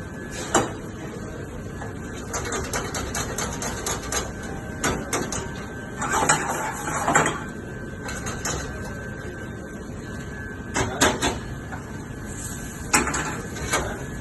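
Kitchen clatter: scattered knocks and clinks of cookware and utensils being handled, a few at a time, over steady background noise.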